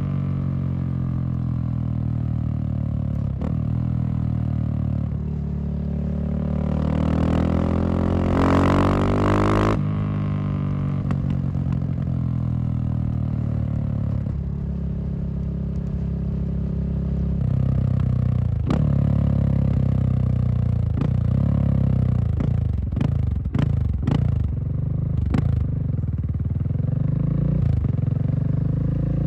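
Husqvarna SM610 supermoto's single-cylinder four-stroke engine running. It is revved up, climbing in pitch for a few seconds before dropping off sharply, then settles and gives a run of quick throttle blips in the second half.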